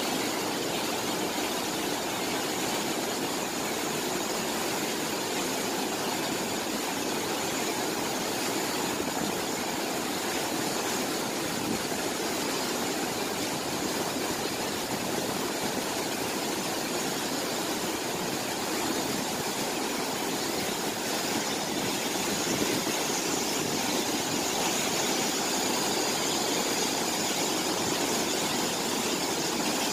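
Steady rushing of a broad curtain of water falling from the edge of a road bridge into a canal.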